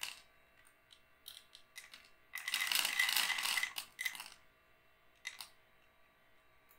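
Automatic pet feeder dispensing dry kibble: a rattling burst of about a second and a half from its motor and falling kibble, with a few light clicks before and after.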